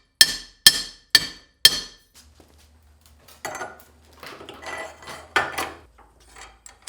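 Hammer blows on steel, four in quick succession at about two a second, each with a bright metallic ring. They are followed by quieter clinks and scrapes of metal parts being handled over a low hum.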